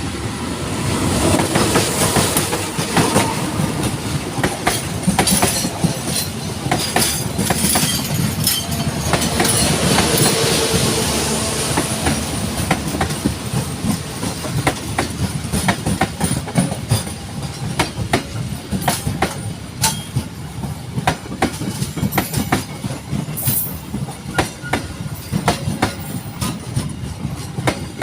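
Train wheels clattering over rail joints and turnout frogs as a train rolls past, a continuous run of sharp clacks over a steady rumble, with a thin high wheel squeal in the first part.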